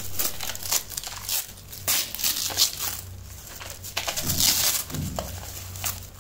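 Clear plastic wrap crinkling in a run of irregular bursts as it is peeled and pulled off chalky white bars, loudest about four seconds in.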